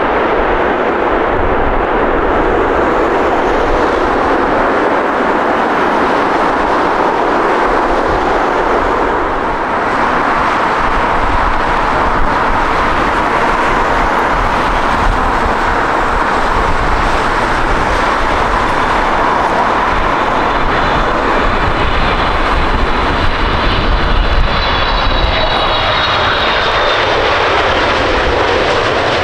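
Jet airliner engine noise throughout: the end of one airliner's landing, then, from about ten seconds in, a Boeing 777-300ER's GE90 engines approaching to land. Near the end a high engine whine joins the steady noise and falls in pitch as the aircraft passes.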